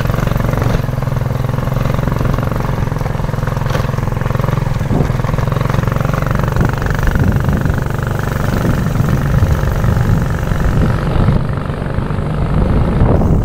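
Motorcycle engine running steadily while riding, mixed with wind and road noise.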